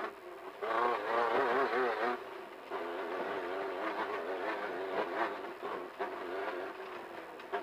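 Engine of a Beetle-based Class 1500 desert race car running hard, its pitch wavering quickly up and down as the revs rise and fall over rough ground, with the car rattling. It is loudest for about a second and a half starting just under a second in.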